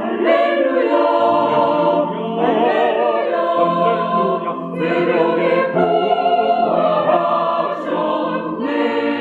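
Church choir of mixed voices singing an Easter alleluia anthem in Korean, sustained notes with vibrato.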